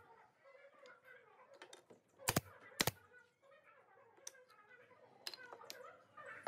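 Pneumatic brad nailer firing twice, about half a second apart, a little over two seconds in, followed by a few lighter clicks.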